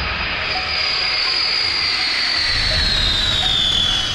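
Boeing WC-135's four jet engines passing low overhead on approach: a steady jet noise with a high turbine whine that drops in pitch over the last second or so as the aircraft goes by.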